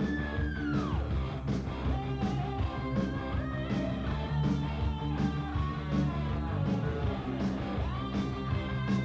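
Rock music with a steady beat of about two drum hits a second and lead lines that slide down and up in pitch.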